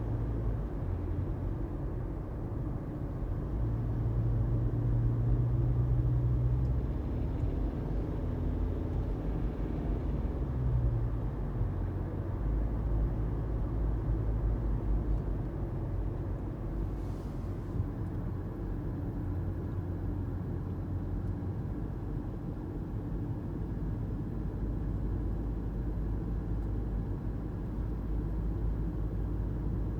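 2018 Toyota Prius hybrid driving: a steady low rumble of engine and road noise, a little louder about four to six seconds in.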